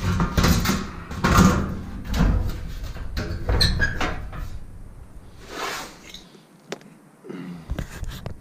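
Irregular knocks, bangs and clatter of handling, like doors, panels or gear being moved and shut, with a short quieter spell near the end.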